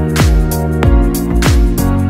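Background music with a steady beat of deep drum hits under held chords.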